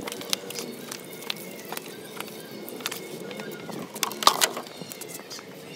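Scattered, irregular clicks and knocks, with a louder clatter about four seconds in.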